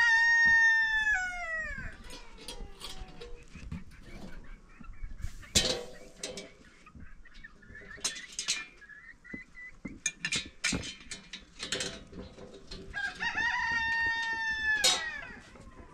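A rooster crows twice, once at the start and again near the end, each call held and then falling away in pitch. Scattered sharp knocks and clicks come in between.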